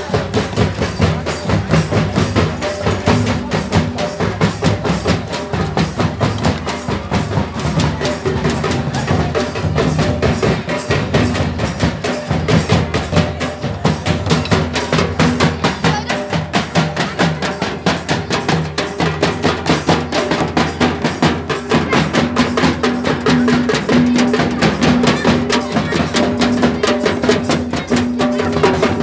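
Folk dance music driven by fast, dense drumming in a steady rhythm, with a held pitched tone coming in about two-thirds of the way through.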